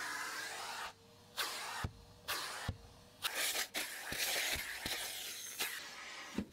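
Vacuum cleaner running over a car's floor mats, its suction hiss cutting out and returning several times, with a few sharp knocks of the nozzle against the mat.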